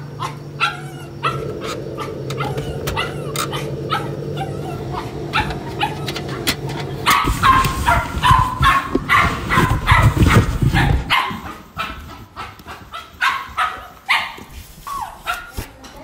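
Rapid, repeated yapping barks and whimpers, loudest from about seven to eleven seconds in, over a steady low hum in the first half.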